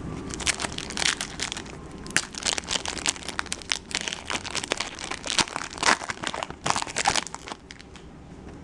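Foil wrapper of a 2012 Bowman Chrome baseball card pack being torn open and crinkled by hand, an irregular crackling that dies away about a second before the end.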